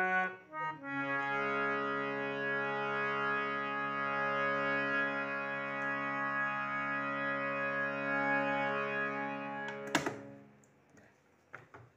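Hand-pumped harmonium reeds: a few quick notes, then a chord held steady for about nine seconds. It ends with a sharp clack about ten seconds in and dies away, followed by a couple of faint clicks.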